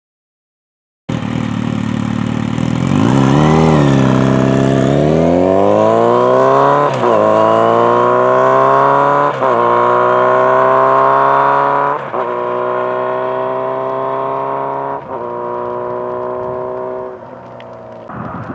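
Kawasaki Z900RS inline-four engine through a Holeshot/Lextek 4-2-1 header system, starting suddenly about a second in: a quick rev, then the bike pulls away, its pitch climbing through each gear with about five upshifts at around 5000 rpm, fading as it moves away near the end.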